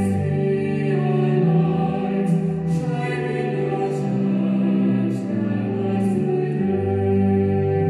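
A choir singing slowly in sustained chords, with the hiss of sung consonants now and then.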